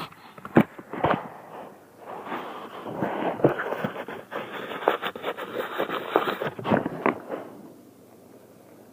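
Close handling noise of a camera lens being wiped with a tissue: rubbing and scratching against the camera with many sharp clicks and knocks. It dies down about seven seconds in.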